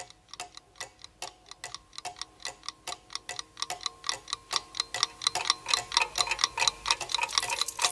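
Clock ticking: a quick, even run of ticks, several a second, growing a little louder, over faint steady tones.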